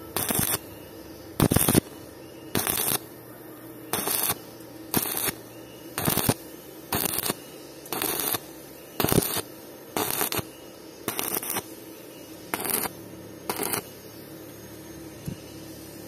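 Stick (shielded metal arc) welding on a steel pipe joint. The arc is struck and broken in short crackling bursts of about a third of a second, roughly once a second, laying the bead one puddle at a time. There are about thirteen bursts over a steady low hum, stopping a couple of seconds before the end.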